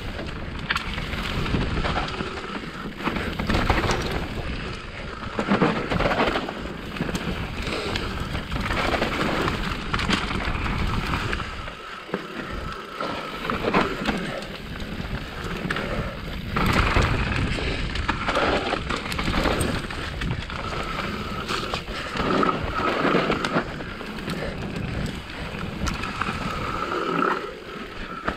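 Specialized Enduro mountain bike descending a loamy dirt trail: tyres rolling over the ground, with the frame, chain and parts rattling and knocking over bumps, and wind buffeting the microphone. A high, steady buzz comes and goes, mostly in the second half.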